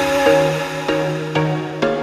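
Background music: an electronic instrumental passage with sustained synthesizer chords, a steady bass note and evenly spaced plucked or struck notes about twice a second.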